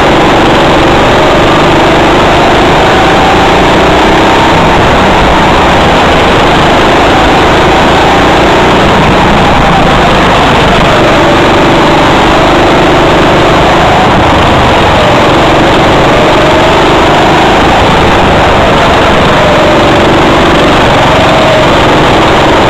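Go-kart engine running loud at racing speed, heard from on board the kart, its pitch rising and falling as it speeds up and slows through the turns.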